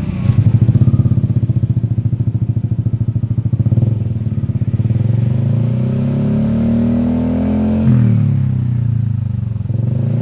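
Yamaha NMAX 155 scooter's single-cylinder four-stroke engine running through an F2racing CL Medium 1 aftermarket slip-on exhaust. It runs with a loud, pulsing note for the first few seconds, then the throttle is held open so the revs climb slowly. The revs drop back sharply about eight seconds in, then climb again.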